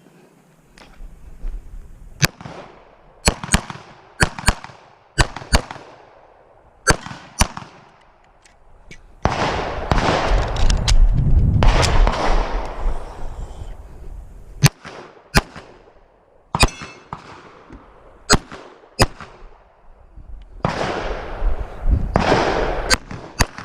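Pistol shots fired during a timed course of fire, well over a dozen, many in quick double-taps. Between strings of shots there are two stretches of loud rushing noise, one in the middle and one near the end.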